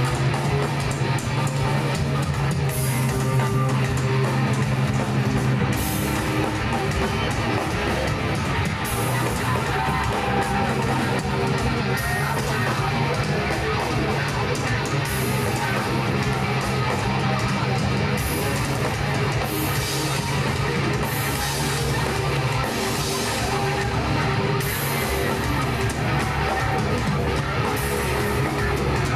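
A live heavy metal band plays at full volume: distorted electric guitars, bass and drum kit, with a bright cymbal crash roughly every three seconds.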